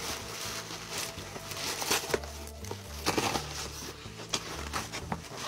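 Paper packaging crinkling and rustling as an item is unwrapped by hand, with scattered light taps and crackles.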